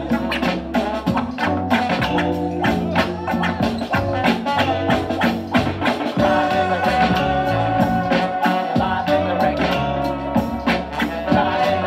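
Live hip hop/groove band playing an instrumental passage: a steady drum beat under a stepping bass line, with sustained melodic lines that swell about halfway through.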